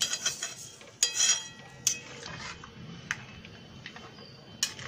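Metal spatula knocking and scraping against a steel kadhai while stirring a thin curry gravy. It gives a handful of sharp metallic clinks, the loudest with a short ring about a second in.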